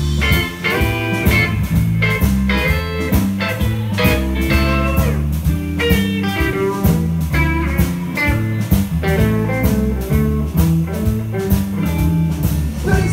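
Live blues band playing an instrumental passage: electric lead guitar playing single-note lines over bass guitar and a drum kit keeping a steady beat.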